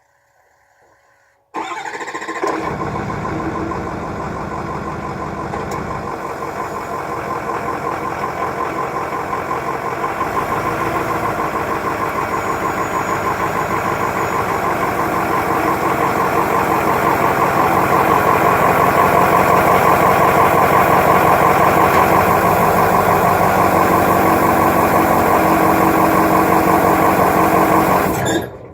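2005 Ford 6.0L Power Stroke V8 turbo-diesel, stock apart from an EGR delete, starting about a second and a half in and running steadily. It grows gradually louder over the first half and cuts off suddenly near the end.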